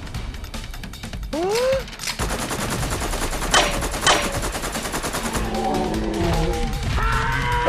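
Rapid machine-gun-style gunfire sound effects in a fast crackle of shots, with two heavier shots about 3.5 and 4 seconds in and a rising zap early on. Wavering pitched tones come in near the end.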